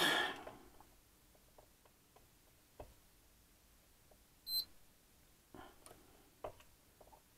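A digital multimeter gives one short, high beep about four and a half seconds in as its probes are pressed onto a transistor's legs on the circuit board, the bleeper that sounds when the meter finds conduction. Faint clicks of the probe tips on the board come between.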